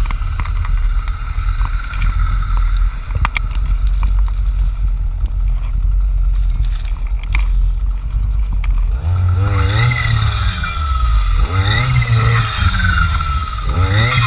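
Jonsered FC 2256 W clearing saw's two-stroke engine running at low speed with scattered clicks and scrapes. About nine seconds in it starts revving up and back down again and again, about every two seconds.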